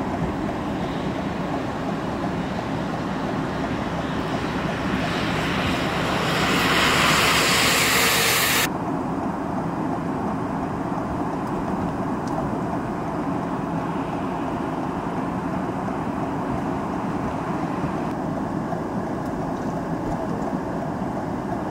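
Heavy vehicles on a snow-covered road: steady engine rumble with tyre hiss, which swells for a few seconds as a tractor-trailer approaches and then cuts off suddenly about nine seconds in. After that, a steady rumble from the snowplow's engine.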